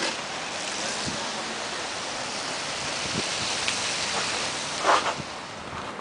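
Steady rushing outdoor noise of a snow-covered city street, with one brief louder sound about five seconds in.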